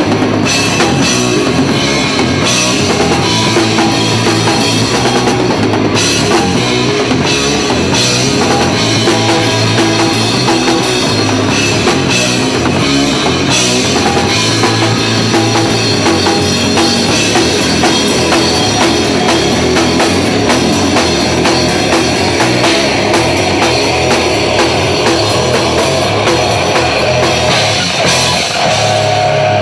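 Live rock band playing loud and steady: drum kit, electric guitars and bass guitar through amplifiers.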